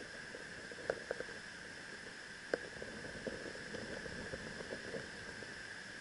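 Steady hiss of a mountain stream's running water, with a few light clicks and taps from close by.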